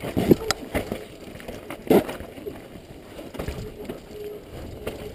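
Downhill mountain bike rattling and clattering over a rocky dirt trail, tyres on stones and loose dirt, with two loud knocks from hits on rocks, one about a third of a second in and a louder one about two seconds in.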